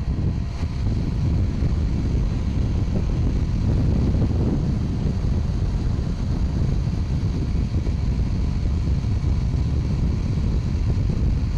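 Steady wind rush over the microphone and engine noise from a Honda fuel-injected motorcycle cruising at speed on an open road, with no gear changes or throttle changes.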